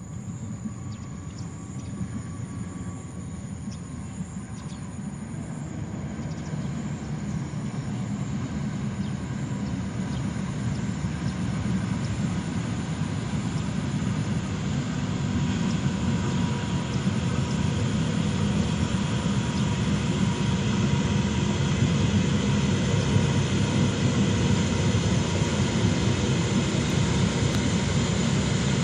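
A diesel-electric locomotive hauling a passenger train approaches, its low engine rumble growing steadily louder.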